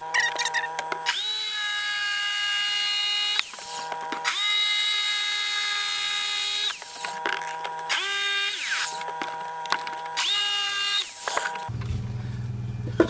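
Handheld electric power saw cutting a rectangular opening in a laminated MDF wall panel, in four separate runs: two long cuts of a couple of seconds each, then two short ones. Each run starts with a quick rise in pitch and then holds a steady whine.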